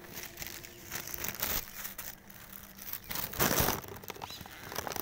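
Thin plastic carry bags crinkling and rustling as vegetables are handled, in uneven bursts with the loudest rustle about three and a half seconds in.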